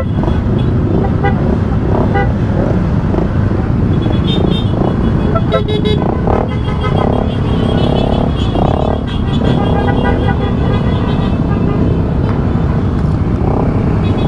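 Many motorcycle engines running together in a close group, with a steady low rumble, and short horn toots sounding several times. Voices in the group are heard over the engines now and then.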